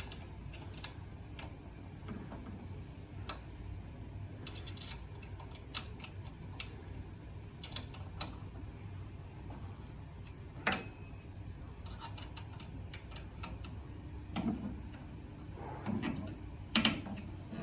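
Scattered small clicks and taps of a 3/16 Allen key working the rack's screws as they are tightened a quarter turn each. A sharper ringing clink about eleven seconds in and a few duller knocks near the end.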